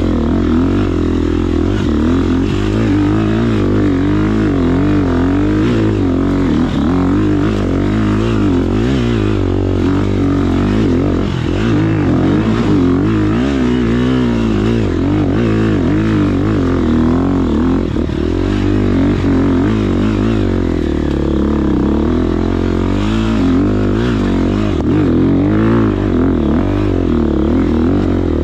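Dirt bike engine running under load on a steep hill climb, its revs rising and falling continually as the throttle is worked.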